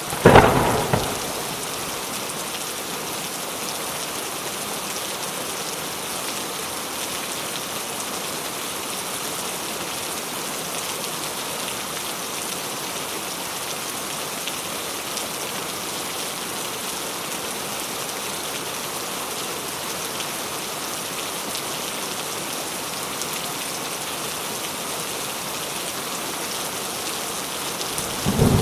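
Steady rainfall, an even hiss of rain on a surface. A sharp, loud crack of thunder right at the start, and thunder rumbling in about a second before the end.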